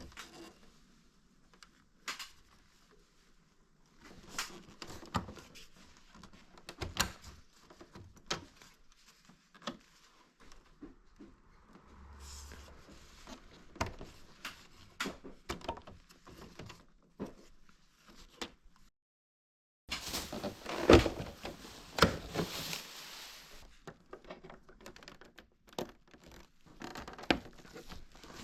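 Scattered clicks, knocks and rattles of plastic parts being handled and unclipped from a Toshiba wall-mounted air conditioner's indoor unit. A brief silent gap comes about two-thirds through, followed by a denser, louder run of knocks.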